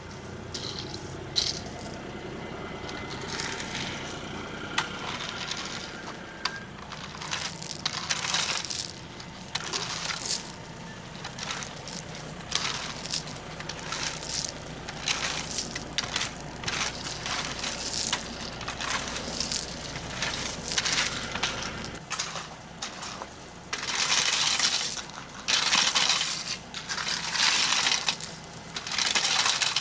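Hand tools scraping and working dirt and gravel in repeated strokes, blending the soil along the patio edge; the strokes grow louder near the end.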